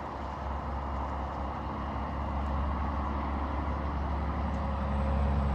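Steady low rumble and hiss of an idling vehicle engine, growing slightly louder near the end.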